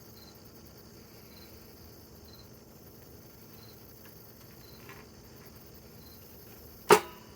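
Quiet background with faint, short, high chirps about once a second, then one sharp knock near the end.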